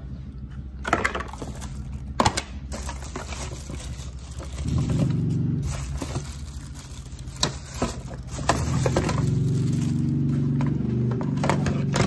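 Unpacking handling of vacuum cleaner parts in a cardboard box: plastic attachments knocking and clattering, with plastic wrap and packaging rustling and scraping. Several sharp knocks stand out, and a low steady hum comes in twice, the second time holding to the end.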